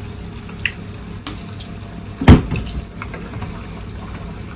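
Water boiling in a pot with a steady bubbling hiss, with light clicks of wooden spoons stirring in it and one loud knock about two seconds in.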